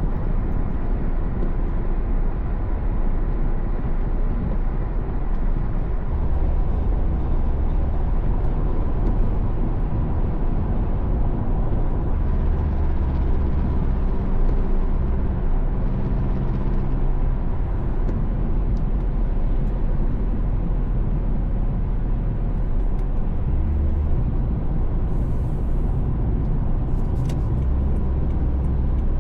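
Car driving at speed: a steady low rumble of road and engine noise, with a faint steady hum running through it.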